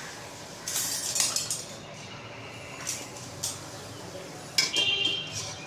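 Metal spatula scraping and clinking against an aluminium handi while whole spices are stirred in hot mustard oil. There are scrapes about a second in, a couple of light clinks, and a louder ringing clang near the end.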